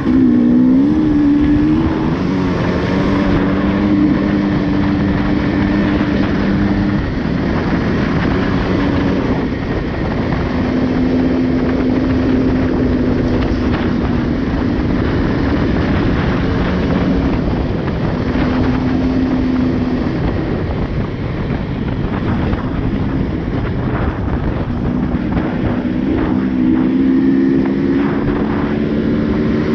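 Off-road motorcycle engine running at trail-riding speed, its note holding steady for a few seconds at a time and shifting up and down with the throttle, over a constant rushing noise.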